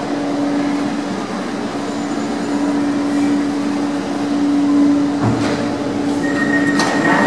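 Rome Metro Line C train at a platform with platform screen doors, giving a steady electrical hum. About five seconds in, door mechanisms start to clunk, and a steady high beep begins about a second later.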